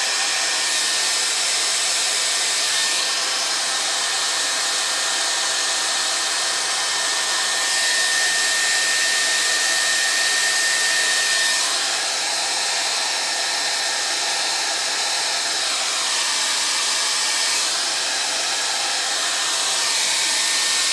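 Handheld hot-air blower running steadily, aimed at the plastic wheels of a postwar American Flyer freight car to heat them until the white film on them clears. Its even blowing noise shifts slightly as it is moved.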